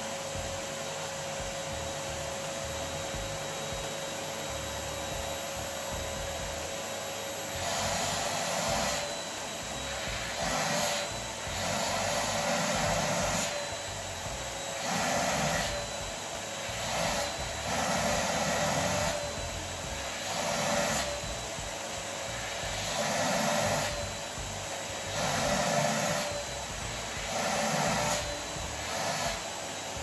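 Canister vacuum cleaner running with a steady sound. From about eight seconds in, its sound swells and falls about every two seconds as the nozzle is moved.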